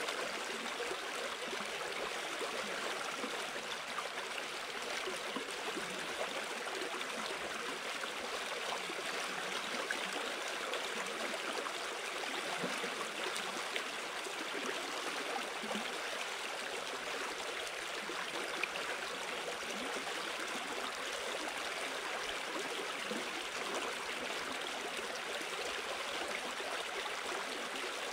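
A shallow river running fast over a stony riffle: a steady, unbroken babble of moving water.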